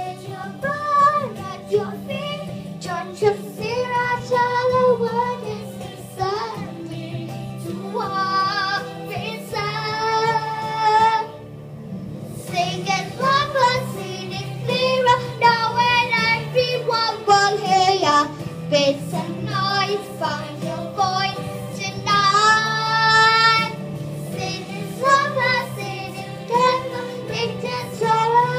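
A young girl singing into a toy karaoke microphone over steady backing music, with a brief pause in her voice about halfway through.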